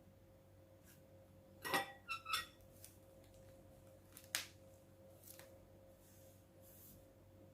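A few light clicks and knocks of small containers or tools being handled on a tabletop, the loudest two close together near the start and another a few seconds later, over a faint steady hum.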